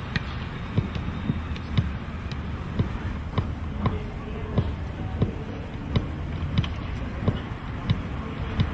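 Football being juggled: a dull thud with each touch of foot, thigh or knee on the ball, about one every two-thirds of a second, over a steady background rush.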